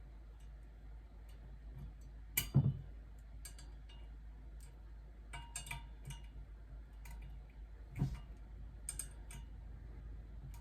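Scattered light clicks and taps of metal pipe parts being handled and screwed together for a pipe clothing rack, with two louder knocks, one about two and a half seconds in and another near eight seconds.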